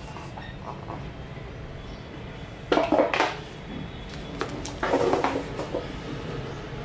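Hands opening a smartphone's cardboard retail box: two short bouts of scraping and knocking, about three and five seconds in, as the inner box comes out and the phone is taken from it.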